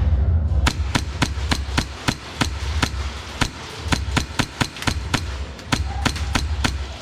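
Airsoft gun firing a rapid string of single shots, sharp cracks about four a second that start just under a second in and stop shortly before the end, over a low rumble.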